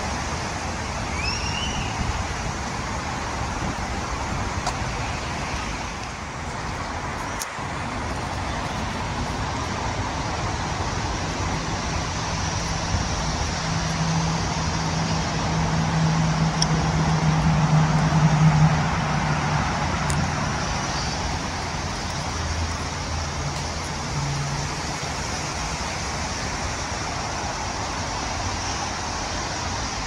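Steady hum of road traffic, with one vehicle's engine growing louder past the middle and then fading as it passes. A brief bird chirp near the start.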